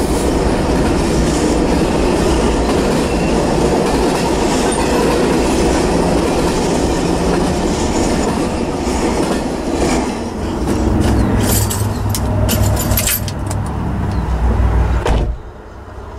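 Double-stack intermodal freight train cars rolling past on the rails, a dense steady rolling noise as the last cars go by. After the train clears, a lower rumble with a few sharp knocks follows and cuts off suddenly near the end.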